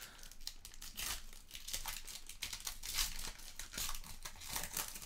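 Foil wrapper of a Clearly Donruss basketball card pack crinkling and tearing as it is pulled open by hand, with a run of irregular sharp crackles.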